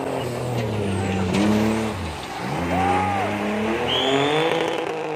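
Rally car engine revving hard through a bend: the note holds, drops about two seconds in, then climbs steadily as the car accelerates away.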